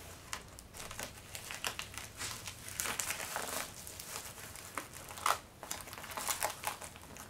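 Plastic bubble mailer crinkling and rustling as a rolled canvas is slid into it. The sound is an uneven run of crinkles, with a sharper crackle about five seconds in.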